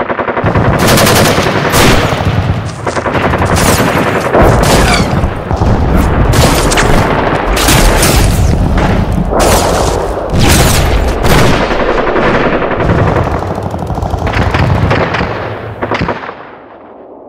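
Gun battle sound effect: continuous machine-gun fire mixed with single gunshots and booming blasts, dense and overlapping, dying away in the last second or so.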